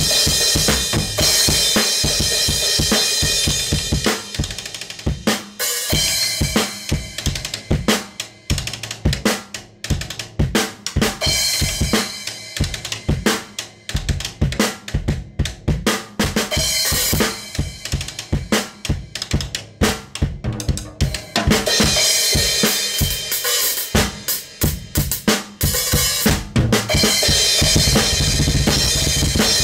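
Solo acoustic drum kit with Zildjian ZHT cymbals, played fast with no backing music: snare, toms and bass drum struck in quick runs. Cymbals ring loudest in the first few seconds and again through the last third, with a stretch of sharper, separate drum hits in between.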